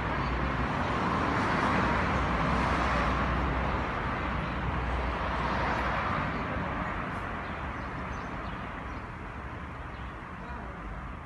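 Street traffic: cars driving past on the road close by, the tyre and engine noise swelling twice and then fading away over the last few seconds, over a steady low rumble.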